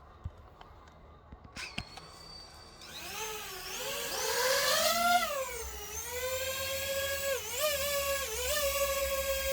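A few clicks, then the motors and propellers of a DJI FPV drone spin up with a high whine that rises and falls in pitch for a few seconds before holding steady, dipping briefly twice near the end.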